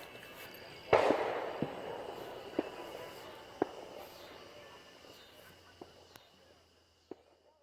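Fireworks going off: one loud bang about a second in, with a long fading rumble after it, then a handful of scattered single pops.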